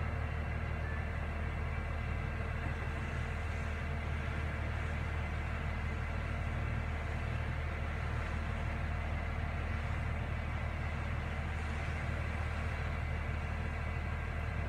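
Mobile crane's diesel engine running at a steady low drone while it holds and slowly lowers a suspended load.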